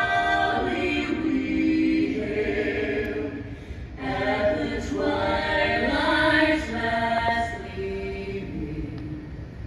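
Several voices singing together in harmony without instruments, a cappella, holding sung notes with a short break about four seconds in.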